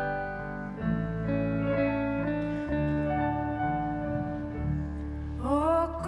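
Live band playing an instrumental interlude of a slow Swedish pop ballad: held chords over bass, changing every second or two. Near the end a tone slides upward.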